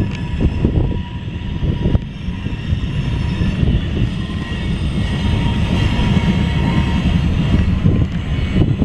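Loaded CSX coal cars of a freight train rolling past at close range: a steady heavy rumble of wheels on rail with a few sharp clicks, and faint steady high-pitched tones over it.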